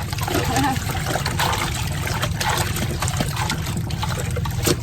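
Water trickling and splashing as cloth rags are hand-washed and rinsed, with a few short splashes, over a steady low hum.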